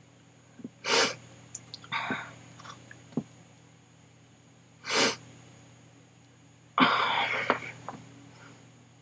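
A woman sneezing repeatedly in a sneezing fit: three sneezes, about a second in, at about five seconds, and a longer one near seven seconds, with fainter breaths between them.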